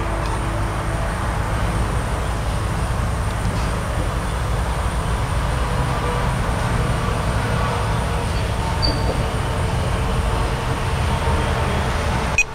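Steady low rumble with a hiss above it, from background machinery, with one sharp click near the end.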